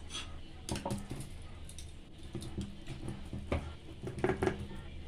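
Wet hand patting and pressing a soft, sticky palm-pulp and rice mixture flat in a steel plate: irregular soft squishy pats, with a few sharper taps against the metal plate in the second half.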